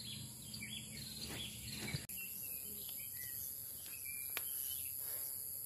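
Faint rural outdoor ambience: insects buzzing steadily at a high pitch, with a few short, faint bird chirps.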